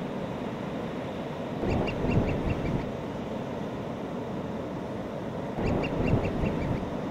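Gulls calling in quick runs of short cries, each run of about six calls falling a little in pitch, one nearly two seconds in and another near the end, over the steady rush of breaking surf.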